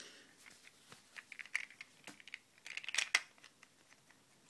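Hard plastic coin capsules being handled, clicking and tapping against each other and the fingers in a run of small, sharp clicks, with a louder cluster about three seconds in.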